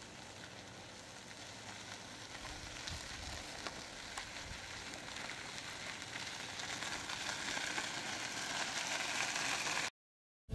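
Faint crunching hiss of small wheels and footsteps on a gravel path, growing steadily louder as the battery-powered pet carrier approaches, with a few small clicks from stones. It cuts off suddenly near the end.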